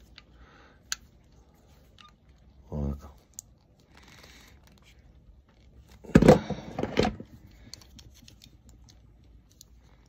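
Wago 221 lever connector being pried apart with pliers: scattered small plastic clicks and cracks. A short vocal sound about three seconds in and a louder one around six to seven seconds in, as from effort.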